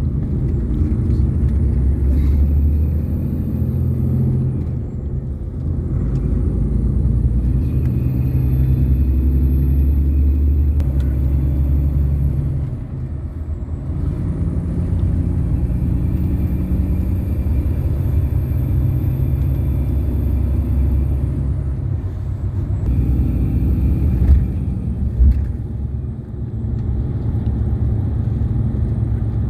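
Bus running, heard from inside: a steady low engine and road rumble, with a thin high whine that comes in and holds for several seconds at a time, easing between stretches. Two short knocks near the end.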